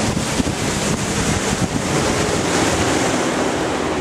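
Bass boat running along the river: a steady outboard motor hum under heavy wind noise on the microphone and water rushing past the hull.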